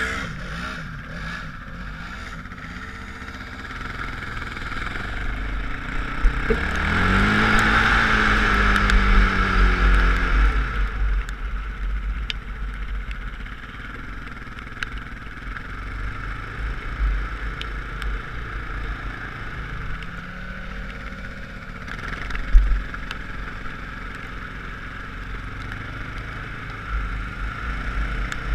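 Off-road vehicle engine running while riding across sand, with wind buffeting the microphone throughout. The engine revs up about six seconds in and eases off about four seconds later, revs again briefly near twenty seconds, and a single sharp thump comes a couple of seconds after that.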